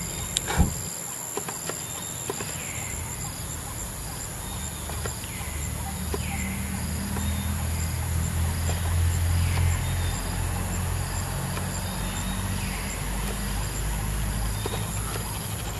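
Outdoor ambience: a steady high insect drone, and a short call that repeats about every second and a half, over a low rumble that grows louder in the middle. A sharp click comes about half a second in.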